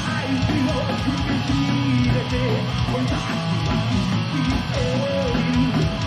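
Heavy metal band playing live: distorted electric guitars over a fast, steady beat.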